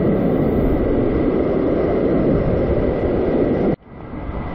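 Steady rushing of a high waterfall, a dense wash of water noise heaviest in the low range. It cuts off abruptly near the end and comes straight back a little quieter.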